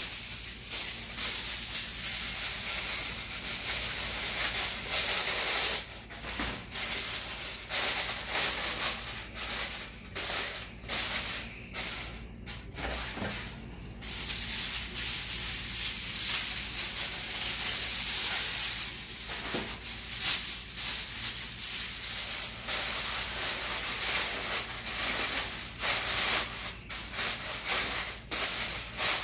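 Aluminium foil crinkling and rustling as it is crumpled and folded by hand around a dish, in irregular spells with short pauses.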